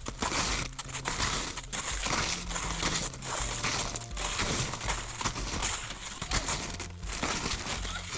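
Snowshoe footsteps crunching through deep snow, about one step a second.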